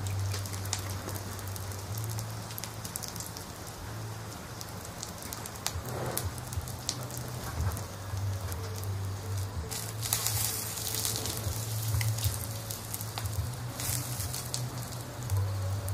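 Campfire burning in a small fire pit, crackling and popping continuously over a steady low hum.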